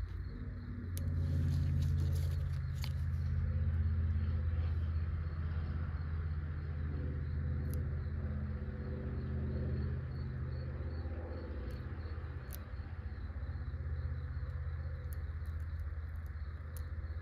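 A low, steady mechanical hum from a running motor, swelling about a second in and easing a little after about ten seconds, with a few faint clicks.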